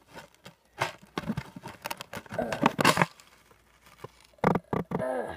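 Cardboard tube handled right at the phone's microphone: irregular rustling, scraping and tapping in bursts, heaviest from about one to three seconds in, with a few more knocks near the end.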